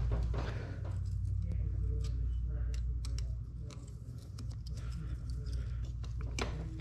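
Small metal clicks and scrapes of a hooked spring-puller tool picking and prying at an old countershaft seal in a dirt bike's engine case, working it loose, over a steady low hum.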